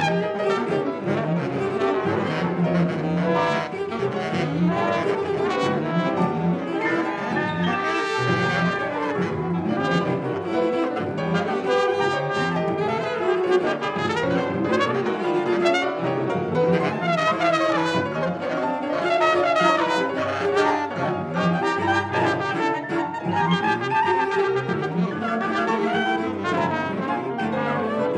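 Improvised jazz from a small acoustic ensemble: trumpet and baritone saxophone playing dense, overlapping lines over bowed cello, with no pauses.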